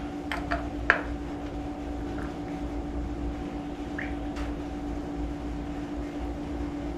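A steady hum, with a few light metal clicks in the first second as parts are worked out of an automatic transmission's accumulator bore.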